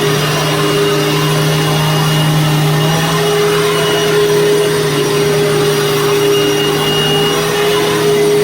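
Hoover Fold Away WidePath U5175-900 upright vacuum cleaner running steadily, a constant motor hum over the rush of air.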